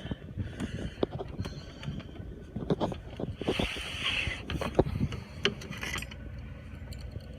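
Scattered knocks, scuffs and handling noise from someone moving about aboard a sailboat, with a short hiss about three and a half seconds in.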